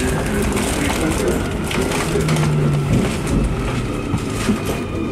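Nuremberg U-Bahn train running through an underground station: a steady rumble and clatter of wheels on the rails, with a thin, steady whine above it.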